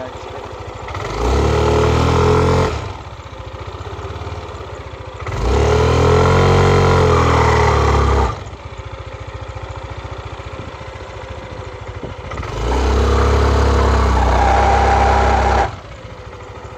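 Yamaha NMAX scooter's single-cylinder engine idling and revved up three times, each rev lasting two to three seconds before dropping back to idle. It growls ('ngorok') and has little power, a complaint the mechanic sets out to trace in the CVT drive.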